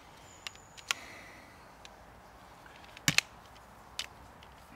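Sharp clicks and light knocks of a folding aluminium camping cot's leg struts and plastic end fittings being handled. The loudest is a quick double click about three seconds in, with single clicks before and after.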